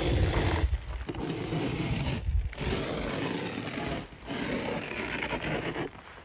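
A fingertip scraping through a thin layer of snow on a car's rear window, in several strokes with short pauses between them.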